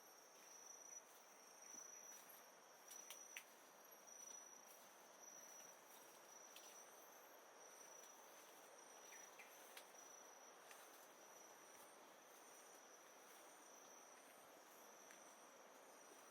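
Faint high-pitched insect trill, repeating in short pulses, over a soft steady rush of flowing water. A few light clicks come in the first seconds and again near the middle.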